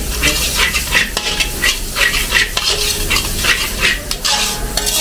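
Metal ladle scraping and tossing chopped vegetables around a large wok, in quick repeated strokes about three a second, over a steady sizzle of stir-frying.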